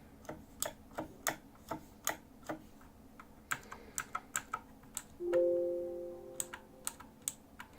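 Razer BlackWidow Ultimate 2016 mechanical keyboard with clicky Razer Green switches being typed on: a loud, irregular clack of keystrokes, about three a second, with a short pause near three seconds in. About five seconds in, a chime rings out and fades over about a second and a half, louder than the keys.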